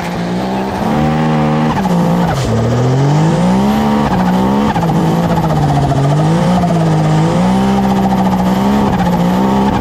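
Turbocharged Can-Am Maverick X3 engine revving up and down again and again as the side-by-side spins donuts, its tires spinning and skidding on dirt. The engine is running well.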